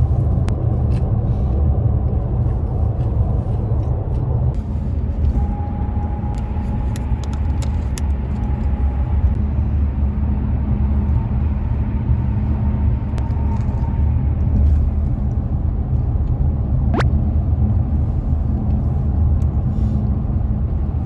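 Steady low road and engine rumble of a car driving, as heard inside the cabin.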